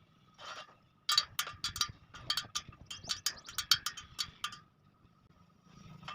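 A quick, irregular run of sharp metallic clicks and taps, a dozen or more in about three seconds, from work on the steel spokes and nipples of a motorcycle's 36-spoke wheel as it is trued. A faint steady whine runs underneath.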